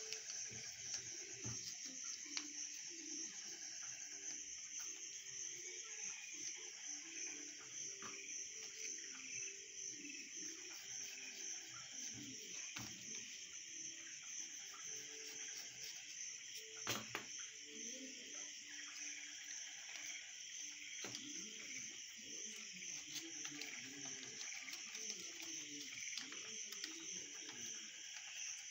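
Steady high-pitched chirring of crickets, with the soft rustle and creasing of paper being folded by hand and a single sharper tap a little past halfway.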